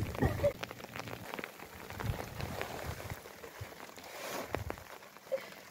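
Plastic sheeting crinkling and rustling as it is pulled and spread over blankets, a scatter of quick crackly ticks.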